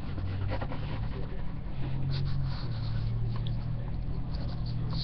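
Light scratches and taps of a pencil and wooden ruler being handled on paper, over a steady low hum.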